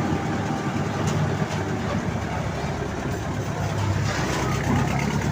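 Old road roller's engine running steadily with a low, even note.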